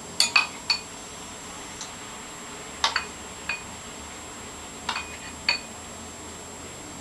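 A spoon clinking against a bowl and dessert glasses as warm fruit is spooned out: short ringing clinks, mostly in pairs, about every two seconds.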